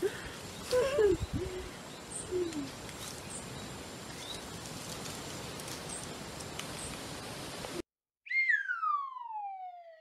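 A descending whistle sound effect, one smooth tone sliding steadily downward for nearly two seconds, comes in about eight seconds in after the outdoor background cuts off abruptly. Before it there is only faint outdoor background with a few brief faint calls and rustles.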